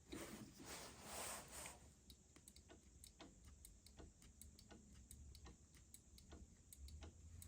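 Faint handling noise: soft rustling for the first two seconds, then a run of light, irregular ticks and clicks, about two or three a second.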